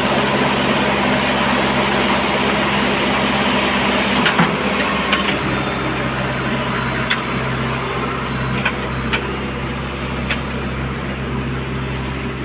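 Diesel engine of a backhoe loader running steadily while its bucket digs a foundation trench in stony red soil, with a few sharp knocks as the bucket works; the engine note shifts a little about five seconds in.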